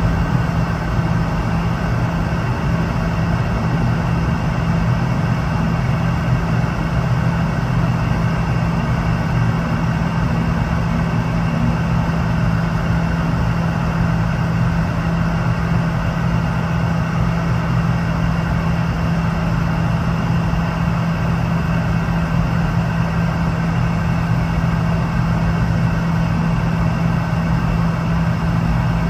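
Steady cabin drone inside a Boeing 717-200 airliner, an even rushing noise over a low, level hum that does not change.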